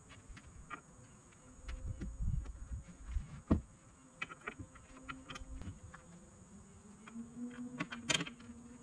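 A flying insect buzzing on and off, a wavering hum, over scattered clicks and knocks from the kayak being handled at a pickup's bed rails. The loudest is a sharp knock about three and a half seconds in, with a clatter near the end.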